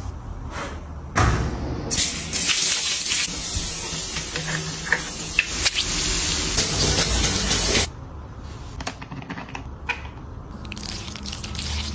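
Running water spraying in a steady hiss, starting about two seconds in and cutting off abruptly near eight seconds, then a shorter, fainter hiss near the end.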